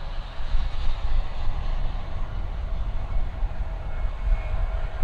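Jet airliner's engines: a deep, steady rumble with a faint whine above it.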